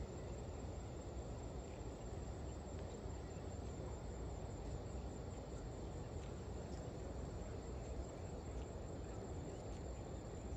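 Steady outdoor ambience: a low rumble of wind with a thin, steady, high-pitched insect drone over it.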